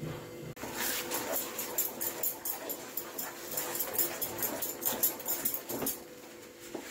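Spatula stirring and scraping thick cooking semolina (suji) batter in a pan: a quick, uneven run of wet scrapes and clicks that starts about half a second in and stops about a second before the end.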